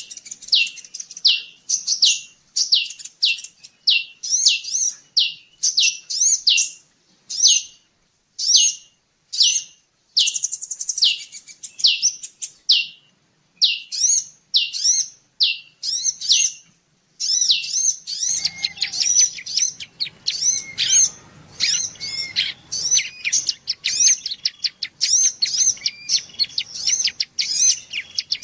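Small songbird calls from a bird-lure (pikat) recording of ciblek (bar-winged prinia) and sunbird: a sharp, high chirp repeated about twice a second. About 18 s in it changes to a faster, denser chattering over a faint background hiss.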